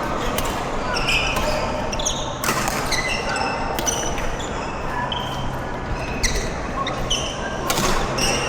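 Badminton doubles rally: several sharp racket strikes on the shuttlecock, with short high squeaks of shoes on the court floor in between.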